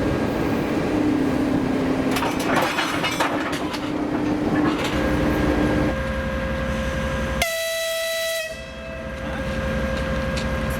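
TEP70BS diesel locomotive's engine running, its rumble growing heavier about five seconds in, with a run of clicks earlier on. About seven seconds in, one blast of the locomotive's horn, about a second long, signals departure.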